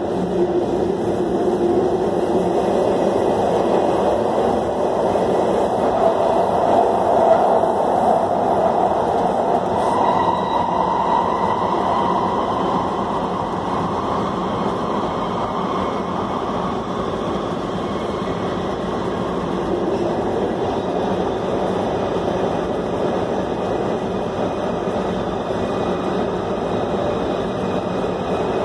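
LA Metro Red Line subway train running at speed through a tunnel, heard from inside the car: steady loud running noise, with a whine that rises in pitch over the first ten seconds or so. The noise eases slightly in the second half.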